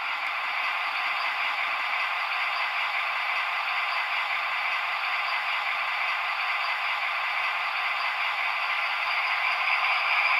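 Steady rattling hiss of an HO-scale model train running on the layout's track, growing a little louder near the end.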